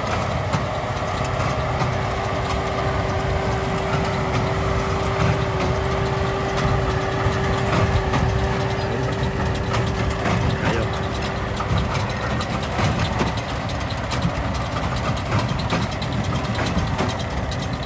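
Kubota tractor engine running steadily while it drives a square hay baler, with the baler's mechanism clicking throughout. A steady whine runs alongside and stops about two-thirds of the way through.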